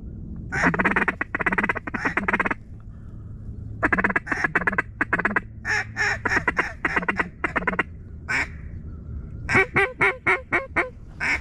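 Mallard duck call blown in quacks, in several runs of short, rapid notes with brief pauses between them, as hunters call to incoming ducks.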